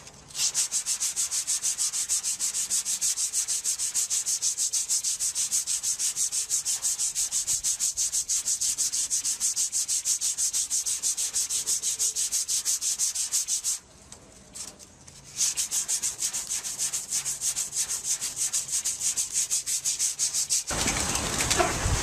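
Sandpaper rubbed by hand over hardened body filler on a car fender: dry sanding in quick, even back-and-forth strokes. The strokes pause briefly about two-thirds of the way through, then go on. Near the end they give way to a different steady noise.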